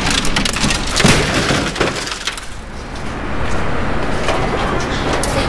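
Televisions tipped over the side of a scrap bin, landing with crashes and cracks of breaking glass and plastic. Most of the crashing comes in the first two seconds, followed by looser clatter.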